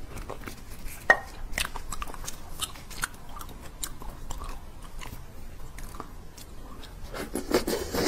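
Close-miked eating of braised beef bone marrow: chewing with many short wet clicks and smacks, one sharp click about a second in. A louder run of mouth sounds near the end as a piece is brought to the mouth.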